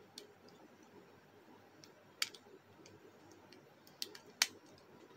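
A few sharp clicks of hard plastic Bakugan toy pieces being handled and snapped together: one about two seconds in and two close together near the end, over quiet room noise.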